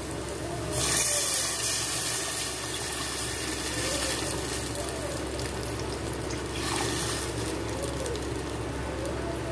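Tamarind water being poured from a steel vessel into a hot steel pot of fried onions and tomatoes: a rushing, splashing pour that rises sharply about a second in and then runs on steadily.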